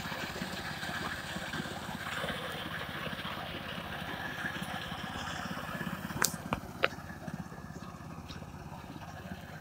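Small engine of a walk-behind self-propelled reaper running steadily under load as it cuts standing wheat, with a fast low pulsing. Two sharp clicks a little past the middle.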